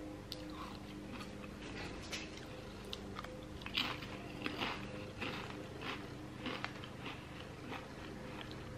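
Close-up mouth sounds of a person biting into an Asian chicken salad wrap about four seconds in, then chewing the crunchy chopped-salad filling in a run of short wet crunches and clicks. A faint steady hum lies underneath.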